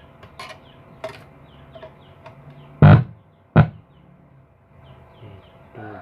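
Two loud, sharp thumps about half a second apart, nearly three seconds in, over short high bird chirps that repeat throughout.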